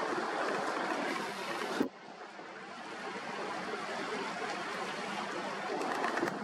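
Rushing, splashing water from a Lake-class patrol vessel's bow wave and wash as it passes at speed. About two seconds in there is a click and the sound drops sharply, then slowly builds back up.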